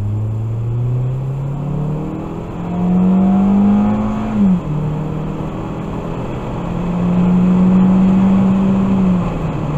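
2013 Ford Focus 2.0-litre four-cylinder engine under hard acceleration, heard from inside the cabin, its note climbing steadily. A little over four seconds in the pitch falls suddenly as the automatic dual-clutch transmission shifts up on its own. It rises again around seven seconds, holds high, and falls once more near the end: the transmission will not hold third gear, which the driver takes for a downshift.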